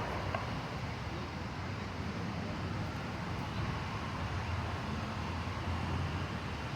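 Steady low background rumble with no clear single event.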